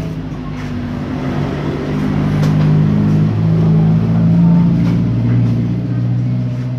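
A motor vehicle's engine running nearby, a low hum that grows louder toward the middle and eases off near the end, like a vehicle passing.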